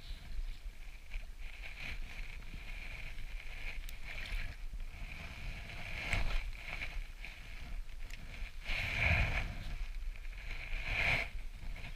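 Lake water sloshing and splashing close by, swelling louder about six, nine and eleven seconds in.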